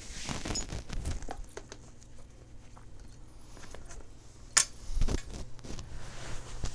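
Handling noises from a framed print and its white mat board: scattered light clicks and taps as fingers work at the frame's edge, with one sharp click about four and a half seconds in and a couple of dull thumps just after. A steady low hum runs underneath.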